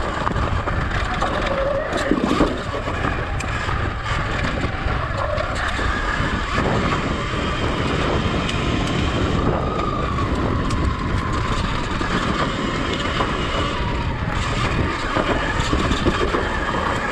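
Sur-Ron X electric dirt bike ridden along a rocky dirt singletrack: steady noise of the knobby tyres and suspension working over dirt and small rocks, with wind buffeting the microphone. About halfway through, a faint whine from the electric drive rises and falls.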